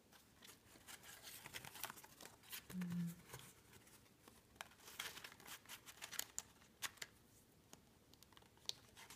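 Quiet rustling and light clicks of the paper and cardboard pages and tags of a handmade coffee-sleeve mini junk journal as they are handled and turned. A brief low hum comes about three seconds in.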